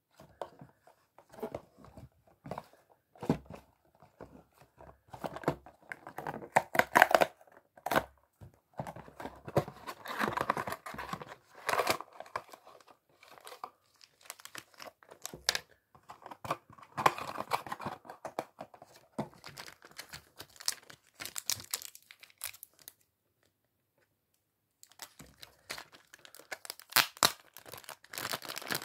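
A small cardboard toy box being opened by hand and a plastic bag torn and crinkled: irregular rustling, tearing and sharp clicks, broken by about two seconds of silence near the end.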